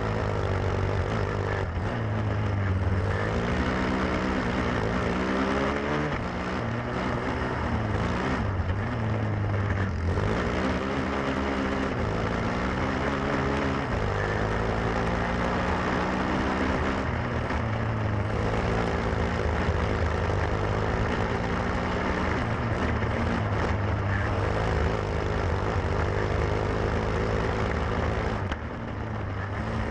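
Onboard sound of a grass racing kart's Lifan single-cylinder four-stroke engine at racing speed, its note rising and falling again and again as the driver accelerates out of turns and lifts for the next. The engine briefly drops off near the end before pulling up again.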